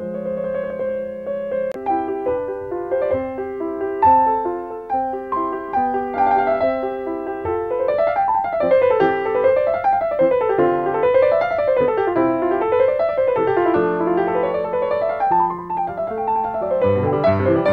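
Background piano music: slow held notes at first, then flowing runs of notes rising and falling from about halfway.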